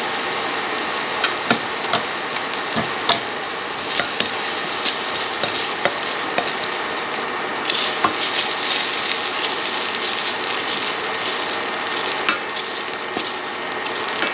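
Oil sizzling steadily in a Baccarat iconiX stainless steel chef pan as a few small pieces of food fry, with a wooden spatula stirring them across the pan's base about halfway through. Short sharp ticks and pops come through the sizzle every second or so.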